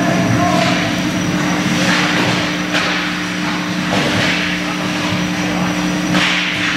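Ice hockey play: skate blades scraping the ice in short strokes, and players and sticks hitting the boards, over a steady low hum in the rink.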